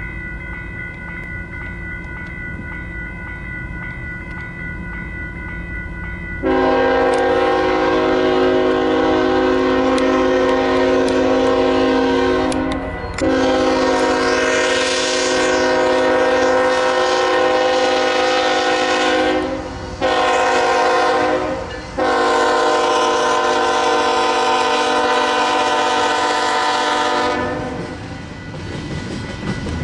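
A GE ET44AC locomotive's Nathan K5HLL five-chime air horn sounding the grade-crossing signal, starting about six seconds in: two long blasts, a short one and a final long one, over the low rumble of the approaching train. As the horn stops near the end, the locomotive's diesel engine grows louder passing by.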